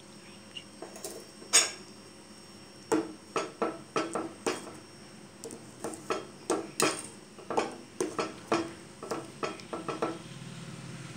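Steel ladle stirring milk in a stainless steel pot, clinking and scraping against the pot's sides: one sharp knock about one and a half seconds in, then a run of clinks at about two or three a second. The milk is curdling with lime juice into paneer.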